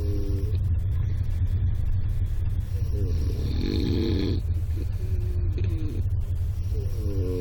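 A sleeping person snoring, one snore about every three to four seconds, over the steady low rumble of a moving train.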